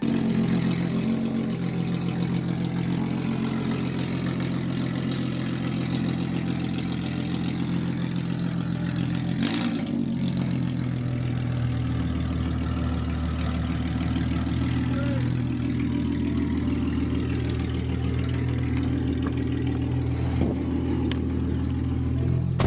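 2013 Ford Mustang's engine running steadily as the car is driven, with a brief dip and rise in pitch about ten seconds in.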